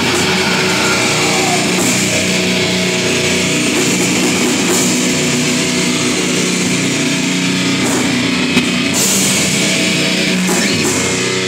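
Live heavy rock band playing: electric guitars holding chords over a drum kit, with cymbal crashes about 2, 5, 9 and 10 seconds in.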